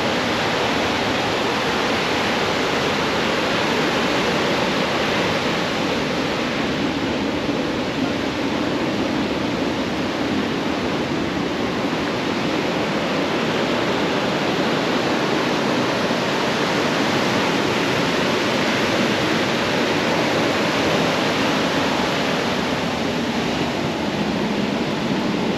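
Ocean surf breaking on a sandy beach: a loud, steady rush of waves and foam with no separate crashes standing out.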